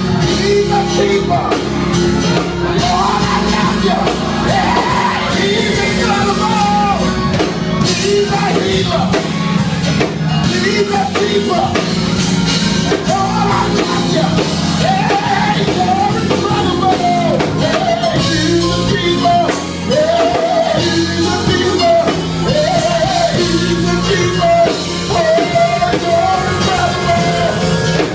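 Loud music: a voice singing a wavering melody over a full band with sustained low chords and drums.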